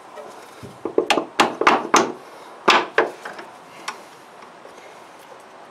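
Hand tool knocking a new spring clip into place on a rear air suspension bag's top fitting: about five sharp knocks in quick succession, then two more after a short pause.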